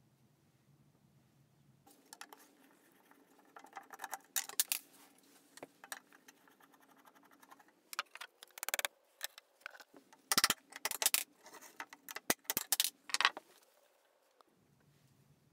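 Small metal clicks, clinks and rattles from handling a rusty handsaw and its loose handle screws on a wooden workbench, an irregular run that starts about two seconds in and is busiest in the second half.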